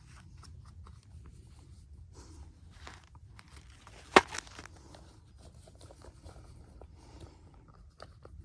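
Wood fire crackling, with scattered small clicks and one loud, sharp pop about four seconds in.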